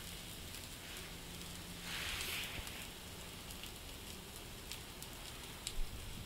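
Blueberry pancake batter sizzling softly in a hot, lightly oiled nonstick pan as the first side cooks: a faint, steady hiss with a few tiny pops and a brief swell about two seconds in.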